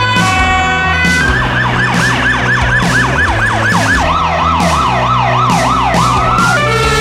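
Emergency-vehicle siren sounding a rapid rising-and-falling yelp over background music with a steady beat. The siren starts about a second in and drops to a lower yelp about four seconds in. It stops with a rising glide near the end, where the music's held notes take over.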